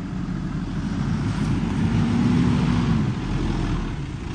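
A 4x4 off-road vehicle's engine running under load, rising in pitch and getting louder about two seconds in, then easing off.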